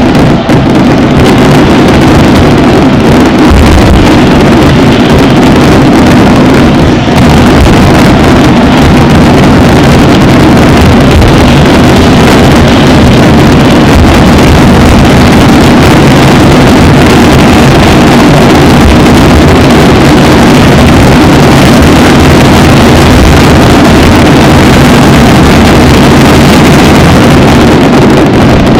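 Fireworks barrage, with shells bursting so thick and fast that they merge into one steady, unbroken din. It is loud enough to overload the camera's microphone.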